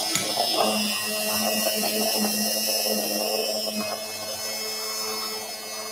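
Hand-held immersion (stick) blender running steadily in a stainless steel bowl of warm curry sauce, aerating it into a light foam. Its high whine eases a little about four seconds in.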